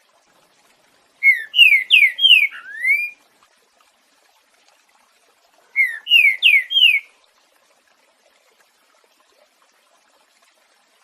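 Green-winged saltator (trinca-ferro) singing its 'boiadeiro' song: two phrases of clear whistled notes, each note sliding downward, the second phrase about four seconds after the first.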